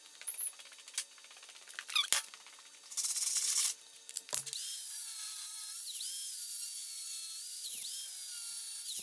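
Workshop power-tool work: a few short noisy bursts, then a small high-speed motor whines steadily, its pitch dipping briefly now and then as it takes load.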